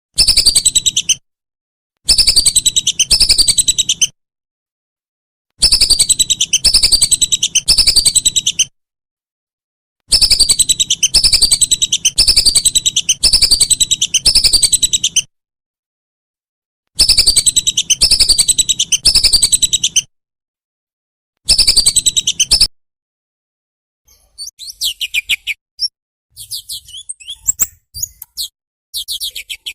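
Recorded songbird song: loud bursts of rapid, repeated high notes, each sweeping downward, lasting one to five seconds and separated by sudden complete silences. From about 24 s in, a different, fainter call takes over as scattered short chirps.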